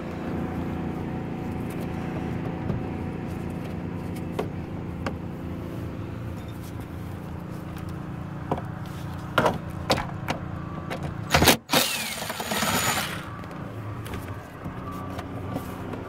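Plastic dash trim on a Ford F-150 being pried and handled: scattered clicks and taps, a few louder knocks with the loudest about eleven and a half seconds in, then a second or so of scraping, over a steady background hum.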